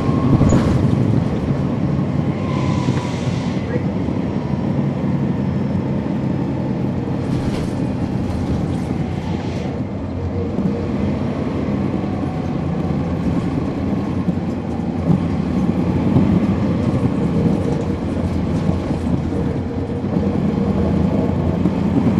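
The Cummins ISL9 straight-six diesel of a 2011 NABI 416.15 (40-SFW) transit bus running steadily under way, heard from inside the bus with road rumble. A hiss rises twice, a few seconds in and again for a couple of seconds near the middle.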